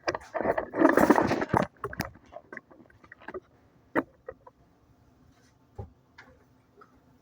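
Handling noises: a loud clatter about a second in, then a scattered run of light clicks and knocks.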